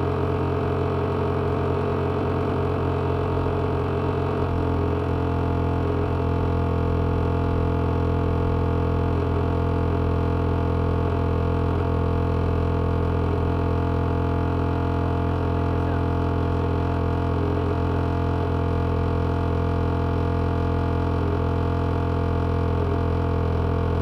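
The float of a car's LPG tank humming loudly during filling as the tank nears full: a steady, buzzing drone that cuts off suddenly at the very end. The owner takes the noise as a sign the float is worn out and due for replacement.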